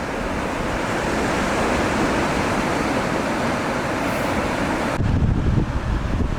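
Sea surf washing onto a beach, a steady hiss of breaking water. About five seconds in it changes abruptly to a gusty low rumble of wind buffeting the microphone.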